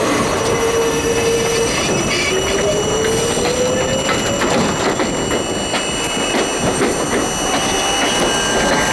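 R32 subway train running on the track, with clicks of wheels over rail joints. A steady whine breaks off about two seconds in, and a whine then rises slowly in pitch as the train picks up speed.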